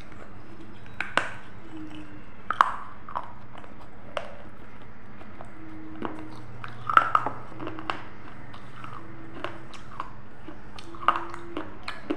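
Close-miked biting and chewing of food: sharp crunches and wet mouth clicks at irregular moments, loudest about a second in, around seven seconds in and near the end.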